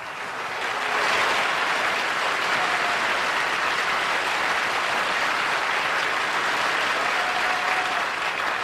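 Studio audience applauding as the mystery challenger signs in; the clapping swells over the first second and then holds steady.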